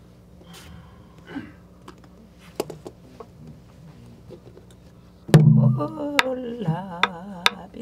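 A few soft rustles and small clicks, then about five seconds in a buk barrel drum is struck hard with a stick and a voice starts singing pansori with a wide vibrato. Three more drum strokes follow under the singing.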